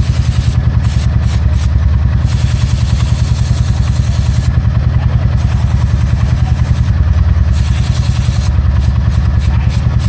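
Motorcycle engine running steadily, with a rapid, even exhaust pulse.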